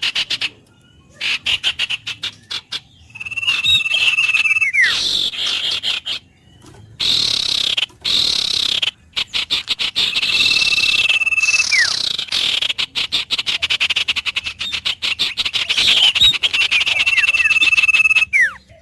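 Nature soundscape of animal calls: a fast, pulsing trill chorus, broken by short pauses. Three times, a held whistle about a second and a half long ends in a quick downward slide.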